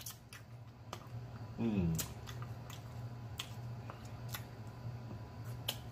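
Close-miked eating sounds from gnawing meat off a barbecued pork rib bone: scattered sharp wet mouth clicks and smacks. About 1.7 s in comes a short falling hum of the voice, and a steady low hum runs underneath.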